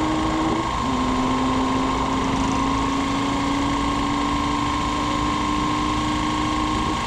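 A vehicle engine running steadily under a constant high whine. Its lower tone drops slightly about a second in, then climbs slowly and evenly.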